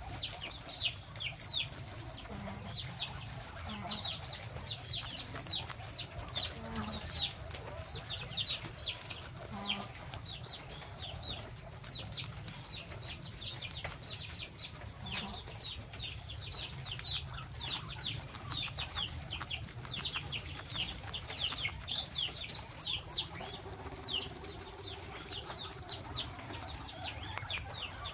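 Many short, high-pitched peeping calls, each falling in pitch, coming several a second without a break, over a steady low hum.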